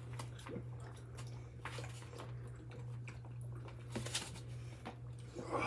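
Close-up mouth sounds of someone chewing food: soft, scattered wet clicks and smacks over a steady low hum.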